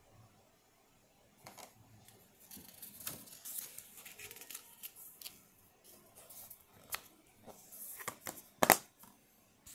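Paper inserts and a plastic DVD case being handled: papery rustling and light clicks, with one sharp plastic snap near the end, the loudest sound, as the case is shut.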